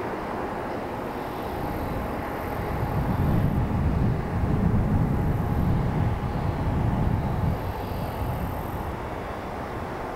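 Jet airliner engine noise: a low rumble swells for a few seconds in the middle and fades, over a steady engine whine.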